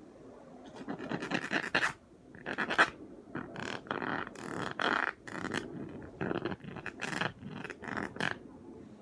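A series of short scratching and scraping strokes, uneven in length and spacing, starting about a second in.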